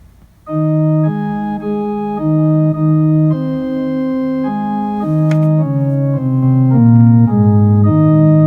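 Organ playing slow, sustained chords that change every second or so, starting about half a second in.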